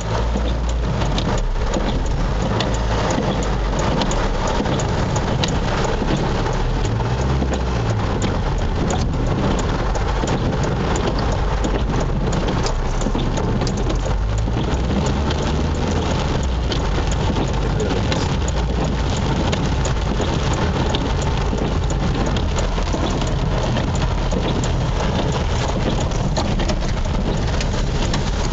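Heavy rain pouring steadily during a thunderstorm, a dense hiss of drops with many individual drops ticking on hard surfaces, over a continuous low rumble.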